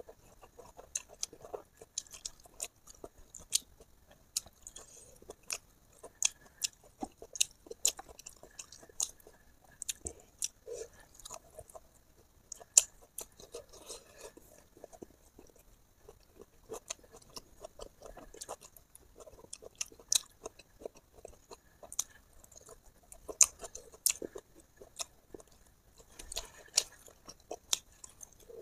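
A person chewing food close to the microphone: irregular sharp, wet clicks and crunches, a few each second.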